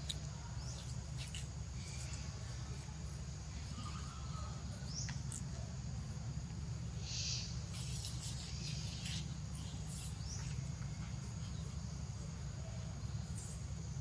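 Outdoor forest ambience: a steady low rumble with scattered faint clicks and short high chirps from insects and birds, including a brief high buzzing patch about seven seconds in.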